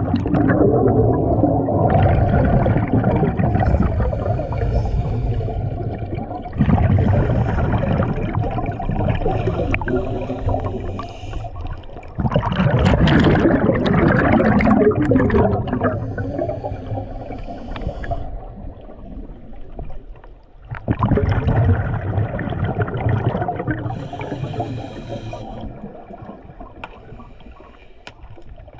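Scuba diver breathing underwater through a regulator: four long bubbly rushes of exhaled air, each starting loud and fading away.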